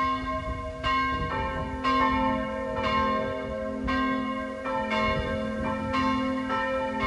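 Church bells ringing, with strokes a little under a second apart from two bells of different pitch, each stroke ringing on into the next.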